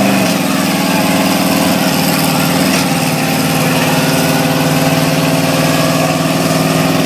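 Chevy pickup's engine held at a steady high pitch during a burnout, the rear tyre spinning, with a steady hiss beneath it.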